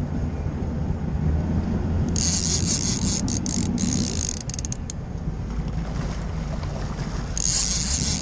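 Boat motor running steadily under a fishing reel's drag, which buzzes out line in two stretches: about two seconds in and again near the end, with quick clicks in between, as a big sturgeon pulls against the rod.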